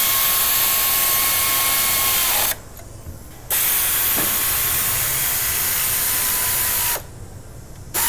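Hand-held power tool running on the crankshaft hub bolts of a VW ALH TDI engine. It gives a steady whine over a hiss in two long runs of about three seconds each, and the whine sags as each run stops. A third run starts right at the end.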